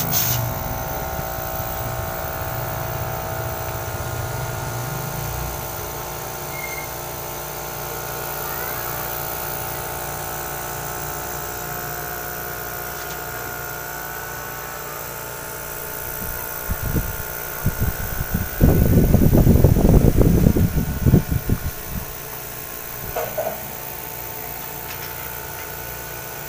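A refrigerator's hermetic compressor and evaporator fan running on a bench wiring test, a steady hum with a constant whine, all components powered and working. A few seconds of louder, irregular noise come about two-thirds of the way through.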